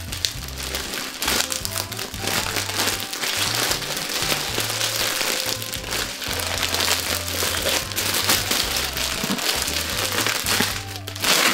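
Plastic packaging crinkling as a green plastic mailer bag and the plastic-wrapped costume inside are handled and pulled open, over background music with a steady bass line.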